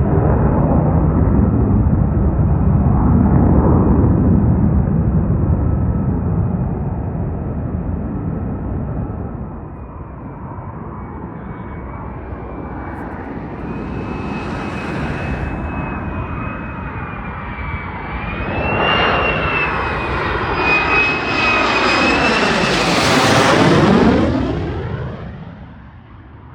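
Fighter jet engines, loud throughout. A low rumble is heaviest in the first few seconds. Then a jet with a high whining tone draws closer, passes loudest about 23 seconds in, and fades away.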